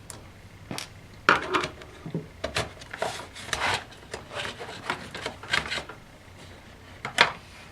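A Phillips screwdriver unscrewing the optical drive's retaining screw from the underside of an Asus U50F laptop: irregular scraping and rubbing of metal tool on plastic, with a sharp click near the end.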